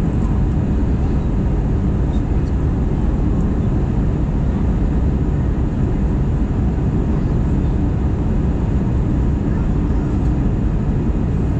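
Steady cabin noise inside an Airbus A320 on descent: a continuous rumble of the jet engines and rushing airflow, heaviest in the low end, with no changes.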